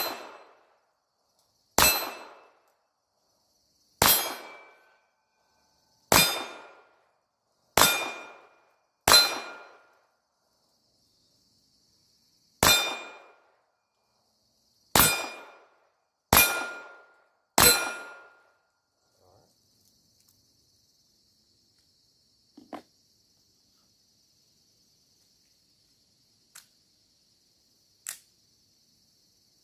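Ruger Mk IV 22/45 Tactical .22 LR pistol firing ten single shots over about 18 seconds, each sharp crack followed by a short metallic ring of a steel target being hit. Then the shooting stops and a few faint clicks follow.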